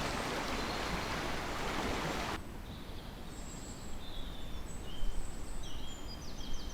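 Steady rushing of a forest stream that cuts off suddenly about two and a half seconds in. A quieter woodland follows, with small birds giving short high chirps and a quick trill.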